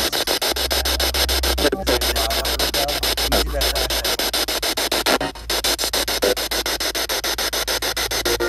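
Spirit box (ghost box radio) sweeping through stations: loud hissing static chopped many times a second, with brief fragments of sound that the ghost hunters mark as a possible EVP voice. The static drops out briefly twice.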